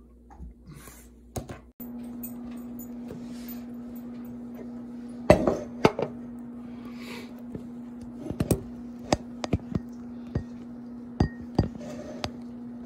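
About a dozen sharp, irregular metallic clicks and clinks on an electric coil stovetop heating a 12-volt self-resetting circuit breaker, the loudest about five and six seconds in. Under them a steady hum starts about two seconds in.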